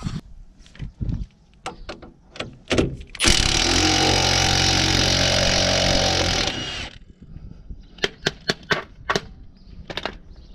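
A Milwaukee cordless impact wrench hammering in one run of about three and a half seconds, undoing the wishbone's lower arm bolt on the front suspension. Scattered short clicks and knocks come before and after it.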